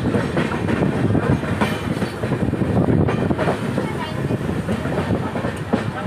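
Passenger train running, heard from inside the carriage with the view open to the outside: a steady rumble with the wheels knocking and clattering over the track.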